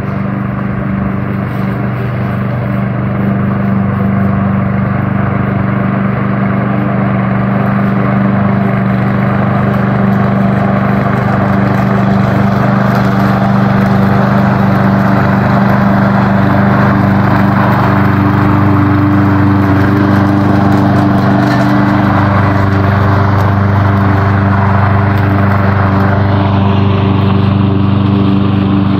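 Self-driving Evatech lawn mower running steadily as it travels across the grass, a loud, even mechanical hum.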